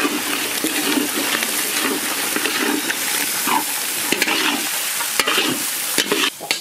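Sliced tomatoes and green capsicum sizzling as they go into hot oil in a large steel wok, with a few sharp knocks on the pan near the end.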